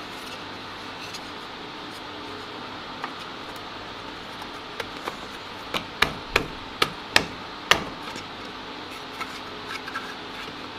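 Sharp wooden knocks as the sides and ends of a small box are tapped together during fitting, a quick run of about half a dozen in the middle, over a steady low hum.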